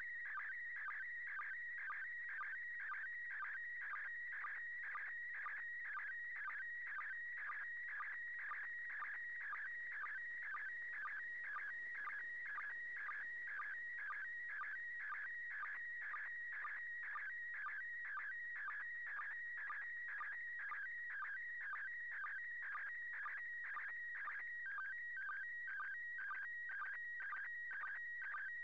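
Slow-scan television (SSTV) signal in PD120 mode from the International Space Station, received on FM: a continuous high warbling tone cut by a regular sync pulse about twice a second as each pair of picture lines is sent.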